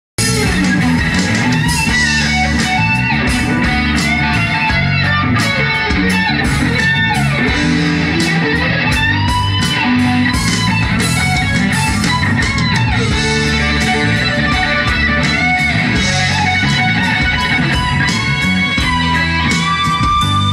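Live rock band playing an instrumental passage: an electric guitar carries a lead line with sliding, bending notes over bass guitar and drums.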